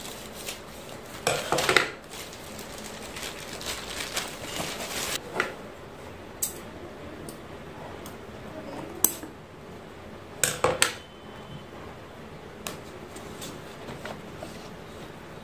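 Unpacking by hand: a plastic courier mailer rustling as it is opened, then scissors cutting the tape on a cardboard product box. Scattered sharp clicks and clacks come as the scissors and box are handled, the loudest about one and a half seconds in, around nine seconds, and a pair near eleven seconds.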